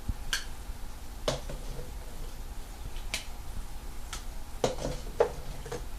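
A spoon clicking and knocking against a container about seven times at irregular intervals while scooping out mayonnaise, some knocks ringing briefly.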